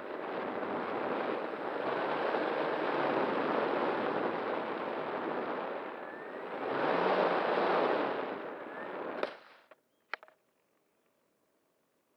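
Steady rush of wind noise on the microphone, swelling louder about seven seconds in, then cutting off abruptly about nine seconds in. Two sharp clicks follow about a second apart, then near silence.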